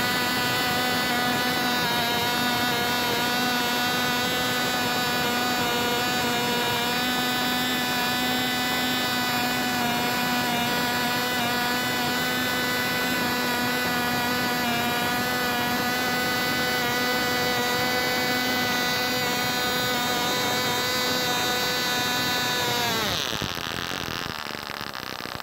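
Cox .049 two-stroke glow engine on a model airplane running at full throttle with a steady high-pitched whine, then winding down sharply near the end as it cuts out.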